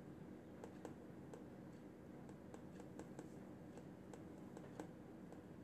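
Faint, irregular small clicks and ticks from fingers separating and weaving strands of a mannequin's synthetic hair, over a low steady room hum.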